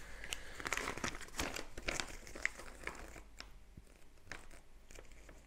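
Paper instruction leaflet rustling and crinkling as it is unfolded and handled, in irregular crackles that thin out after about three seconds.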